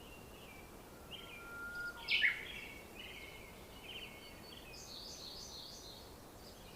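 Wild birds singing: repeated short chirping phrases, with one louder, sharp call sliding down in pitch about two seconds in, over faint outdoor background noise.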